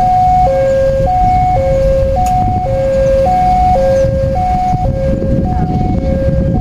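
Railway level-crossing warning alarm sounding: two electronic tones, a high and a low, take turns about every half second. A dense low rumble runs underneath.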